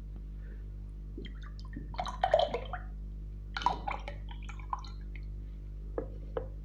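Canned pineapple juice drink poured into a glass mug in two splashing pours, about two and then three and a half seconds in. A few light knocks follow as the can and mug are handled and set down.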